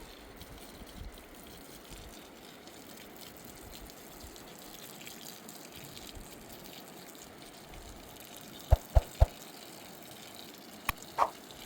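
River water running steadily, broken a little under nine seconds in by three sharp knocks about a third of a second apart, and two fainter knocks near the end.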